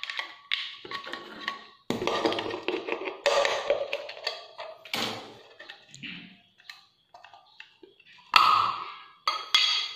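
Knife blade prying and tapping around the lid of a small tin can of PVC solvent cement: irregular metallic clicks, scrapes and taps, with two louder clinks near the end as the lid is worked loose.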